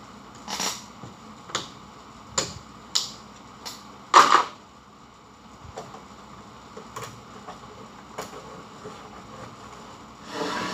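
Clicks and knocks of hands working on the wiring inside an elevator control cabinet: a string of sharp clicks, the loudest knock about four seconds in, then lighter ticks and a short rustle near the end.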